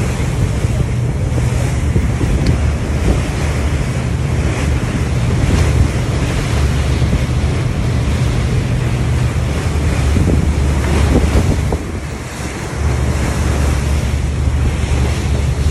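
Wind buffeting the phone's microphone on the deck of a moving boat, a heavy steady rumble over the rush of water from the hull and wake; the buffeting eases briefly about twelve seconds in.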